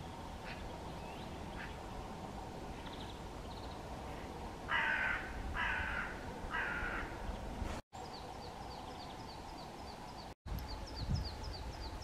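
Hooded crow cawing three times, each caw about half a second long. Afterwards a small songbird gives a quick run of high, falling notes, about four or five a second.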